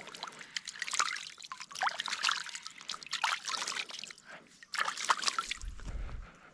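Water trickling and splashing in irregular spurts. A low rumble comes in about a second before the end.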